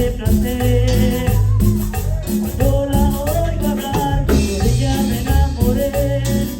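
A live band playing a Latin dance song, with a steady bass line, a shaker and a sung melody.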